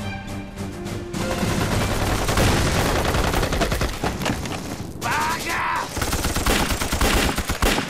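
Film score ending about a second in, then a battle sound effect: a dense fusillade of rifle and machine-gun fire that goes on without a break.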